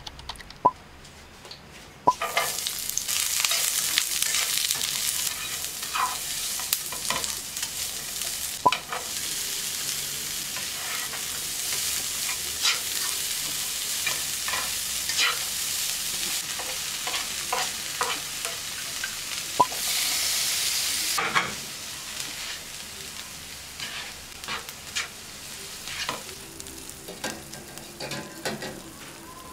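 Chopped peppers and onions sizzling in hot oil in a frying pan while a spatula stirs them, with scattered clicks and scrapes against the pan. The sizzle starts suddenly about two seconds in as the vegetables hit the oil, and drops to a quieter sizzle with occasional clicks about two-thirds of the way through.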